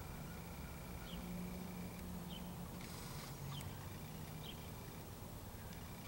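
Small songbird giving short, high chirps about once a second. A low steady hum runs underneath, and a brief burst of hiss comes about halfway through.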